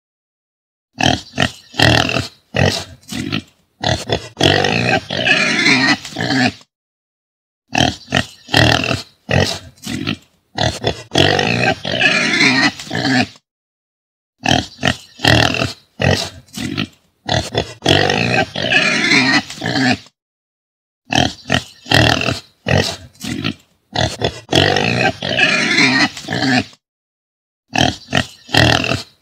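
Pig calls played as a looped sound effect. Each round has four or five short calls, then a dense run of about two and a half seconds. The same sequence repeats about every seven seconds, with brief silences between rounds.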